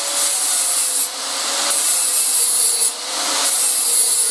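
Angle grinder with an abrasive disc grinding down built-up aluminum weld on a foot peg: a steady motor whine under a grainy rasp, easing briefly about a second in and again near three seconds.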